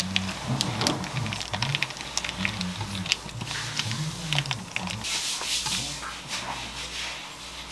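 Damp, sticky rice paper being handled and rolled around a sausage on a wooden cutting board: a run of small tacky clicks and crackles from fingers and paper, with a short rustling hiss about five seconds in as a fresh sheet is laid down.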